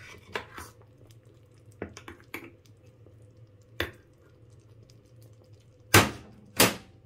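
Metal spoon clinking and scraping against a small stainless-steel saucepan while stirring sago pearls in water, in scattered light taps, then two louder knocks near the end.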